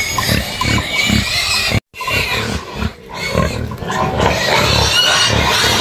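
An animal grunting over and over in short, low calls, about two to three a second. The sound cuts out completely for a moment about two seconds in.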